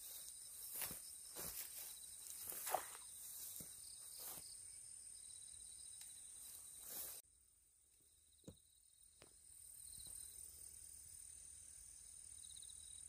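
Faint steady chirring of insects in the grass, with scattered rustles and soft knocks as a baited fishing rig is cast into the pond, and one sharper sound nearly three seconds in. About seven seconds in the sound cuts to a quieter background with a single click.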